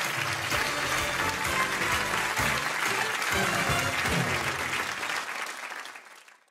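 Studio audience applauding over the show's closing theme music, with a bass line under the clapping. Both fade out in the last second or so.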